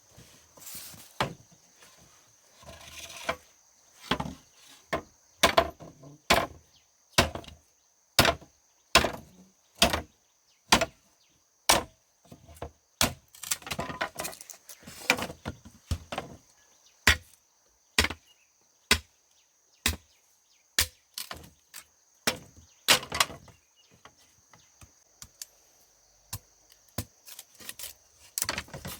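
Ears of corn being snapped off their stalks by hand: a long run of sharp cracks and knocks, about one a second and irregular, with a steady high drone of insects underneath.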